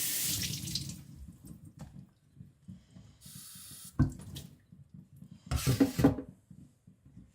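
Water running and splashing in three short spells, with a sharp knock about four seconds in.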